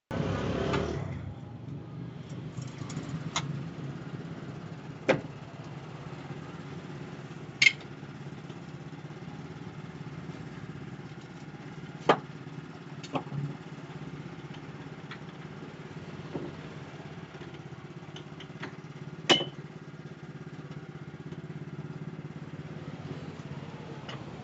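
Motor-driven sugarcane grinding machine running with a steady low hum, with a few sharp knocks and clacks now and then.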